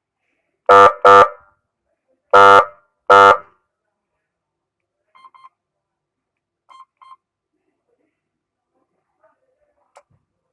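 Wireless SA-920 vehicle siren unit sounding short horn blasts: four loud bursts of a steady buzzing tone, in two pairs, in the first few seconds. Two faint double beeps follow a couple of seconds later.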